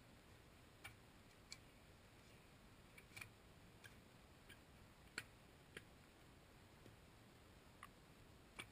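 Near silence, broken by about a dozen faint, sharp clicks at irregular intervals.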